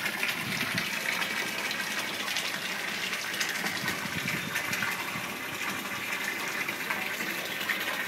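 Water gushing steadily into a lobster holding tank, splashing and bubbling at the surface.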